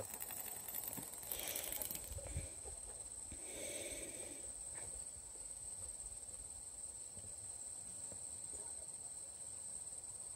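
Steady high-pitched chirring of crickets. Twice in the first half it is joined by faint scuffing and rattling from a dog moving about on a chain over dirt.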